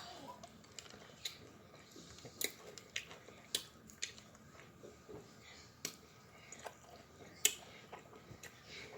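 Close-miked eating sounds: chewing chicken wings with sharp, irregular wet smacks and clicks of the lips and mouth, one sharper smack about seven and a half seconds in.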